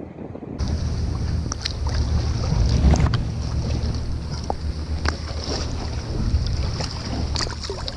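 Wind rumbling on the microphone over water sloshing around a small boat, with scattered light splashes and knocks.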